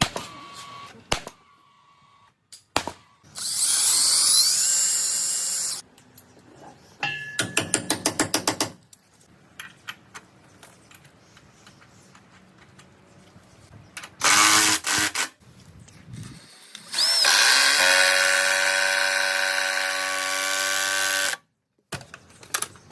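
Handheld power drill used in several short bursts, with a fast run of clicks near the middle and a longer steady whine near the end.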